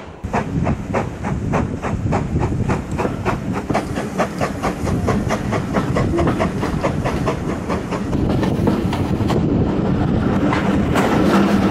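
GWR 4200 Class 2-8-0T steam tank engine working a train, heard from a carriage window: steady exhaust beats about four a second over the rumble of the coaches on the track. Near the end the sound gets louder and fuller as the train runs through a narrow stone bridge.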